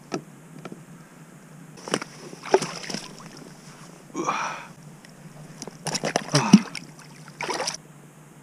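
Short, irregular splashes and sloshes of water with a few knocks as a cod is landed and handled beside an inflatable boat.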